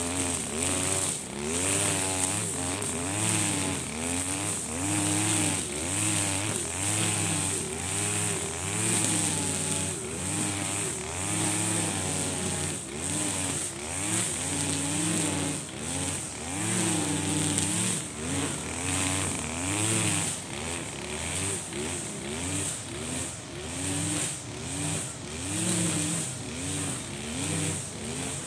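Husqvarna 542RBS 42cc two-stroke backpack brush cutter running near full throttle while cutting thick grass with its string head. The engine pitch rises and falls about once every second or so as the load comes and goes.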